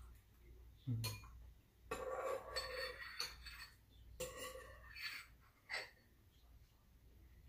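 Eating sounds at a meal: spoons and chopsticks clinking against bowls, with slurping and puffs of breath. Two longer breathy stretches come about two and four seconds in.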